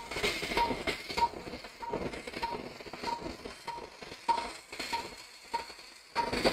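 Patient monitor's pulse beep: a short, steady, mid-pitched tone repeating about every 0.6 s, roughly 100 a minute, tracking the heartbeat. Scattered clicks and knocks of instrument handling sound over it.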